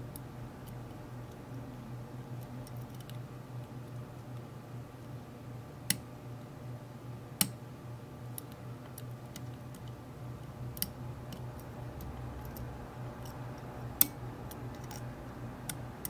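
Faint metallic ticking and clicking of a lock pick working the pin stack of a Guerville Riquier brass padlock held under heavy turning pressure. A few sharper clicks stand out, the loudest about fourteen seconds in.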